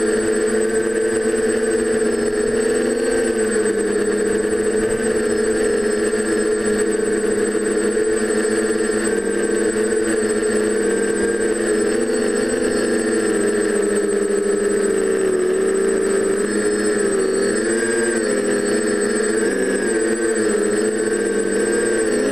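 TBS Discovery quadcopter's four DJI 920Kv brushless motors spinning 9x5 propellers in flight, a steady buzzing whine whose pitch wavers up and down with throttle changes. A thin, steady high tone sits above it.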